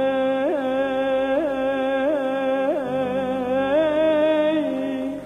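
A male singer holds one long note in Turkish arabesk style, with several quick upward ornamental flicks in the pitch, over soft accompaniment. The note cuts off just before the end.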